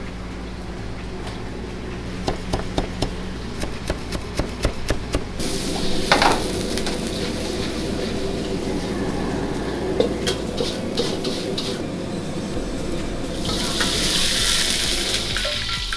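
Stir-frying in a wok over a gas burner: a metal ladle clinks rapidly against the wok. About six seconds in, food or liquid hits the hot wok and sets off sizzling, which swells louder near the end, over a steady low hum.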